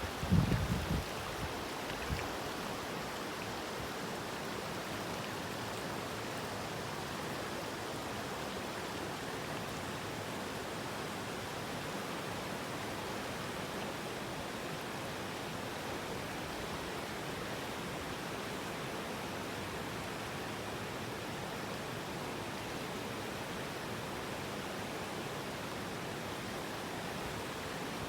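Steady, even rushing of running water, unchanging throughout, with a few low thumps in the first two seconds.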